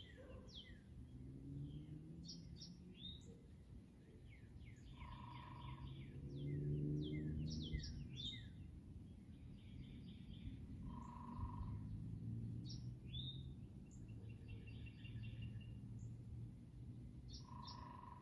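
Small songbirds chirping and singing, many short quick falling notes throughout. A short steady whistle-like tone sounds three times, about six seconds apart, over a faint low hum.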